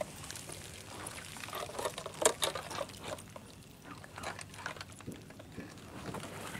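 Water splashing and gurgling around a small model pickup truck driving submerged, with irregular little splashes, the loudest about two seconds in.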